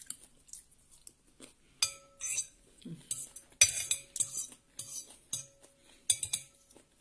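Metal spoon and knife scraping and clinking against a plate as food is scooped up: a few light strokes in the first two seconds, then a busy run of short scrapes and clinks from about two seconds in.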